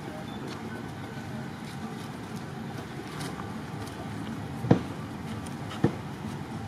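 Steady low outdoor background rumble, broken by two sharp knocks about a second apart past the middle.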